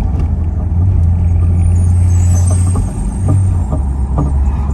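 Chevrolet Camaro SS's 6.2-litre V8 with the mufflers deleted (axle-back muffler delete), droning steadily while driving, heard from inside the cabin. The drone dips briefly about three seconds in and then settles slightly lower.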